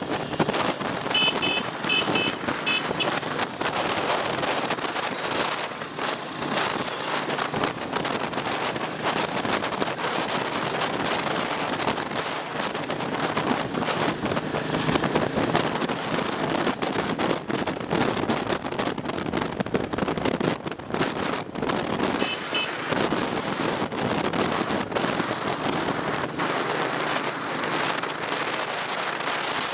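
Wind buffeting the microphone on a moving motorbike, a steady rushing noise. A quick run of short high beeps comes about one to three seconds in, and a brief one again around twenty-two seconds.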